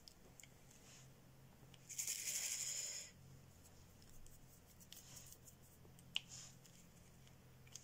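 Sparse small clicks of a diamond-painting drill pen setting resin drills onto the canvas, with a rustling rattle lasting about a second, two seconds in, over a low steady hum.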